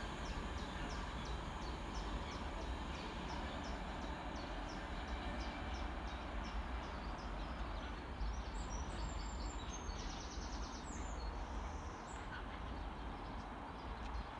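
A Class 66-hauled container train moving away, its low rumble fading and dropping off about twelve seconds in. A faint regular high ticking runs through the first half, and birds chirp briefly around the middle.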